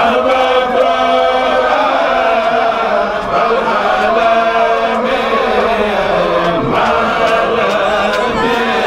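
Religious chant sung by a group of voices, held on steady sustained notes.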